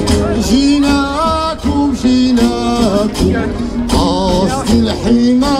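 Live Gnawa music played loud over a PA: a man sings wavering phrases over a steady low bass line and sharp, rattling percussion strokes.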